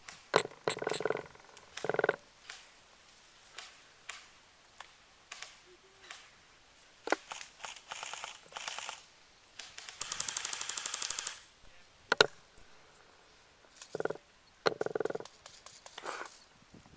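Airsoft guns firing during a game: scattered single shots and one rapid full-auto burst of about a second and a half, a fast run of even clicks, just past the middle.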